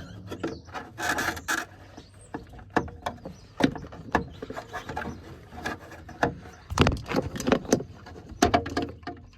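Flathead screwdriver prying at the plastic retaining tab of a Ford F-150 fog light housing: irregular clicks and knocks of metal on plastic, with a short scrape about a second in.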